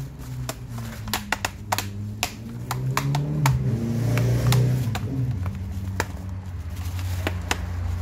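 Irregular sharp plastic clicks and taps as hands handle an HP Pavilion x360 laptop, over a low hum that swells around the middle.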